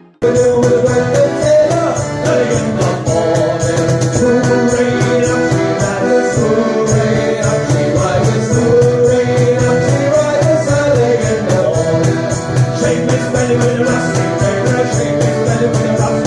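Background music: a new piece with a steady beat and a melody line starts abruptly just after the start, as the previous music fades out.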